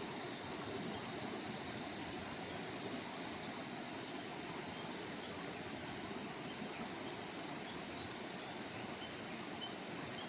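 Steady rushing of a mountain river's water over stones, an even hiss with no breaks.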